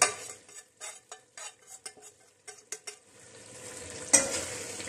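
Hot butter tempering of fried cumin, coconut and sesame poured into chicken gravy: a short sizzle at the start, then a run of light clicks and scrapes of metal utensils against the pans, and a steady sizzling hiss that sets in sharply at about four seconds as it is stirred in.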